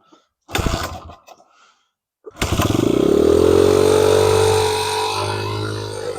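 Honda XR100R's single-cylinder four-stroke engine cold-starting on full choke: a short burst of engine noise about half a second in, then the engine fires and quickly climbs to a high, steady race before slowly easing off near the end. The racing idle on choke is taken as a sign that the carburetor needs attention.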